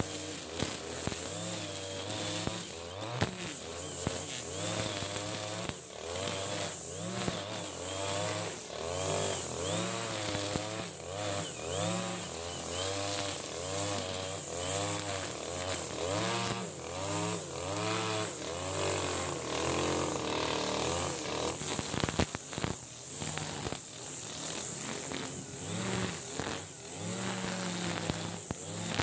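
Backpack brush cutter's small petrol engine running under load while cutting grass, its pitch rising and falling about once a second as the cutting head is swung through the grass, over a steady high whine.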